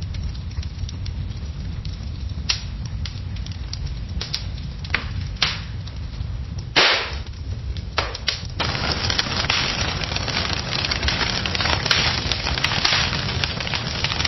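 Fire crackling: a low steady rumble with sparse sharp pops, one louder pop about seven seconds in. After about eight and a half seconds it changes to a dense, hissing crackle.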